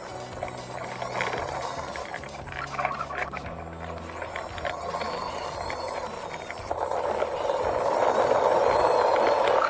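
Battery-powered toy train running: its small motor and gears whirring with a clicking rattle, getting louder over the last few seconds.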